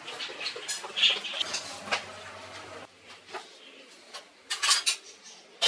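Irregular light clicks and knocks of kitchenware being handled, a plastic basket and a stainless steel bowl, with a quick run of louder clatters near the end.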